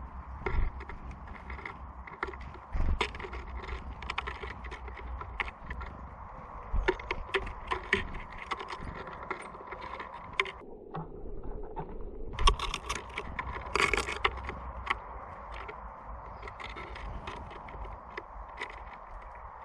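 Irregular light clicks and taps of small birds landing on and pecking seed at a bird feeder, busiest about three-quarters of the way through.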